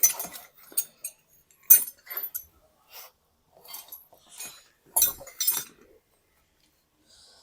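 Metal hand tools and engine parts clinking and tapping while the timing chain tensioner bolt is fitted and tightened on a motorcycle engine: a string of irregular sharp metallic clinks, the loudest at the start and around the middle.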